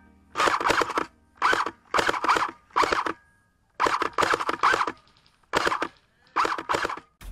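Airsoft electric rifle firing a string of short full-auto bursts, each a quick rattle of several shots with a whine from the gearbox, with brief pauses between them.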